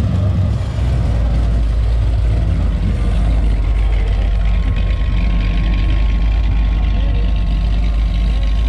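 A vehicle engine idling: a steady low rumble, with voices in the background.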